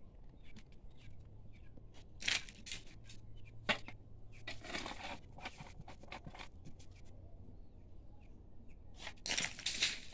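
Hand digging in stony earth: irregular scrapes and knocks of a digging tool against soil and rock, with one sharp knock a little before halfway and longer scraping strokes around the middle and near the end.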